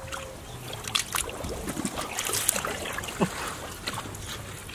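Hands groping and sloshing in shallow muddy water, with small irregular splashes and drips.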